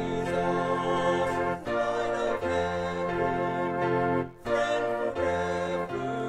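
Organ music: held chords that change twice, each change marked by a brief break.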